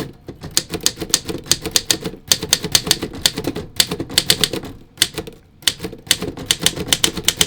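A 1959 Torpedo 18B manual typewriter typed on at speed: a rapid run of crisp, clicky typebar strikes, several a second, broken by brief pauses. It is a snappy, fast action from a well-oiled machine.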